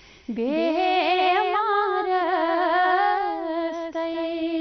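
Woman singing a Kashmiri naat without words in this stretch: an ornamented phrase that winds up and down in pitch, settling about three seconds in into a long steady held note.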